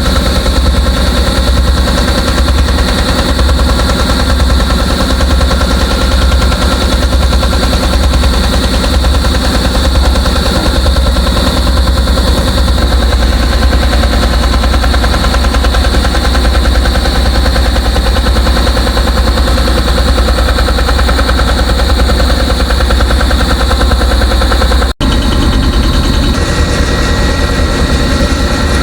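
Heavy construction machinery running steadily with a loud, rapid rattle over a deep rumble while a bored-pile casing is being pulled out.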